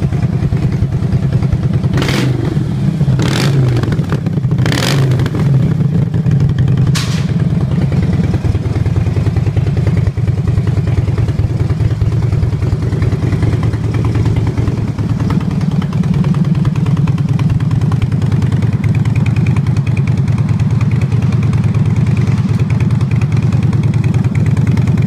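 Harley-Davidson Dyna Fat Bob V-twin idling through Akrapovic exhausts, with a few quick blips of the throttle in the first seven seconds, then settling back to a steady idle.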